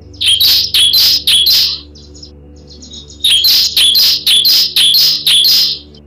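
Bar-winged prinia (ciblek) calling in sharp, high, rapid chirps, in two bursts: about four notes in the first two seconds, then about six more from about three seconds in. A steady low drone runs underneath.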